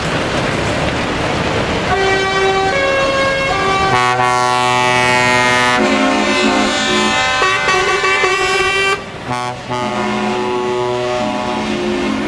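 Trucks pulling away with diesel engines rumbling; about two seconds in, air horns start sounding long blasts that step between different pitches. The loudest stretch is a full multi-tone horn chord from about four to six seconds in, and the blasts carry on with a short break near nine seconds.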